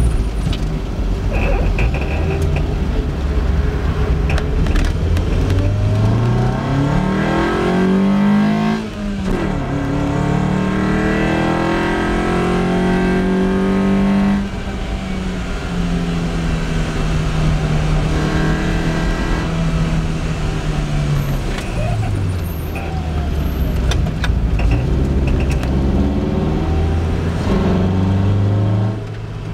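Lotus Elise's four-cylinder engine heard from inside the car, pulling hard up the gears: the engine note climbs, dips at a gear change about nine seconds in, climbs and holds, then eases off and falls for the bends before climbing again twice. Road and wind rush run under it.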